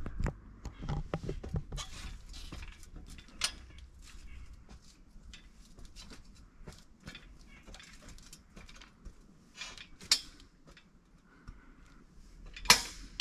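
Climbing the ladder of an elevated box hunting stand: irregular clinks, knocks and a few pops from the ladder and stand as the climber's weight goes onto each step. One sharp knock near the end is the loudest.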